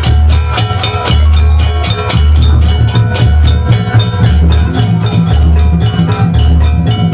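Loud jaranan gamelan music played through loudspeakers: fast, dense drumming over a deep bass beat about once a second, with steady ringing metallic tones on top.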